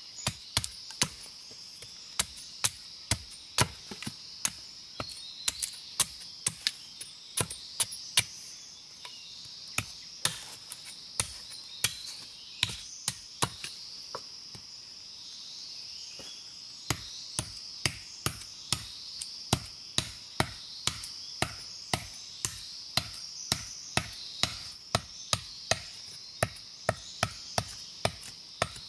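Machete chopping green bamboo in a run of steady strokes, about two to three a second, with a short pause about halfway through.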